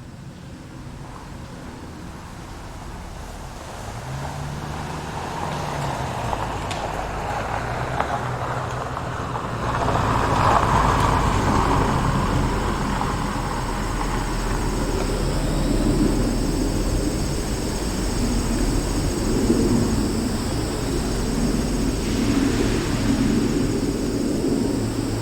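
A motor vehicle on a rural road: engine rumble and tyre noise that grow louder over the first ten seconds, rise sharply at about ten seconds, then run steadily.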